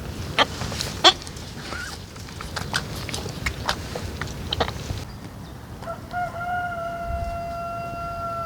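A series of sharp knocks and clicks, then a rooster crowing: one long held call starting about six seconds in.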